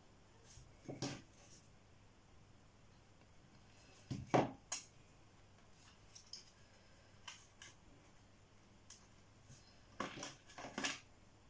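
Hands handling a paper explosion box and small wooden letter tiles: faint, scattered short taps and paper rustles, loudest about four seconds in and again near the end.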